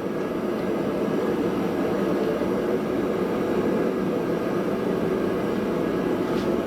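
Forge running with a steady rushing noise as a billet heats toward forge-welding heat, not yet reached.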